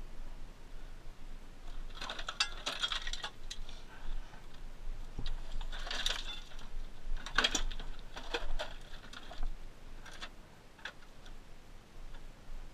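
Several short bursts of clattering and crunching from loose rock and scrap metal being stepped on and handled, with scattered clicks between them.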